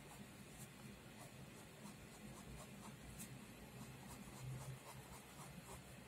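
Faint pen strokes scratching on paper as lines are drawn, over a faint low steady hum.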